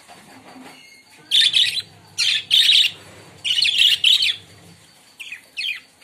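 Pet budgerigars chirping in a cage: four loud bursts of rapid, scratchy chirps in a row about a second in, then two shorter chirps near the end.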